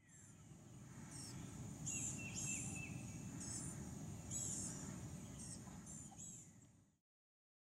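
Faint outdoor nature sound: small birds calling in high, thin, short chirps, repeated irregularly, over a low steady rumble. It fades in at the start and cuts off near the end.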